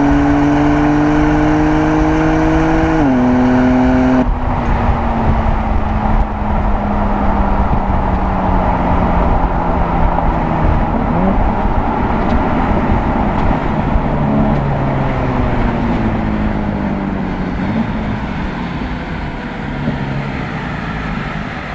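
BMW M3 twin-turbo straight-six under hard acceleration, its note rising, then dropping sharply at an upshift about three seconds in. It then runs with a slowly falling note as the car slows, with a brief blip partway through, over steady wind and tyre noise.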